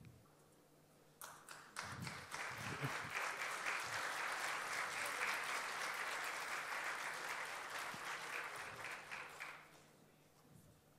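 Audience applauding: a dense patter of clapping that starts about a second in, holds for several seconds, and dies away near the end.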